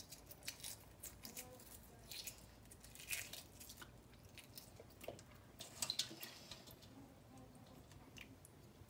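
Faint, scattered crackles and clicks of hard-boiled egg shells being cracked and peeled off by hand.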